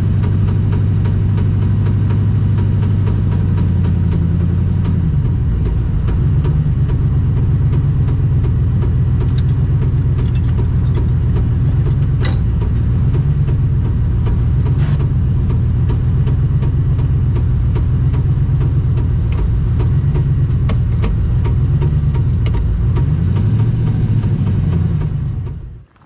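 Drag race car engine idling, heard loud from inside the cockpit; after about five seconds its speed starts wavering up and down. It runs with a knock, the sign of the blown motor. The sound cuts off near the end.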